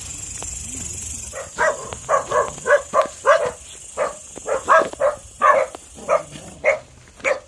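A dog barking over and over in quick succession, about three barks a second, starting about a second and a half in.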